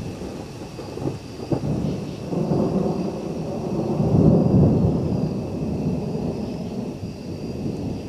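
Thunder from a nearby lightning strike: two sharp cracks about a second in, then a long rolling rumble that swells to its loudest midway and slowly dies away.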